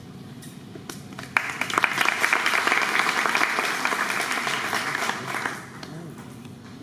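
Audience applauding: a few scattered claps, then full applause from about a second and a half in, lasting about four seconds before dying away.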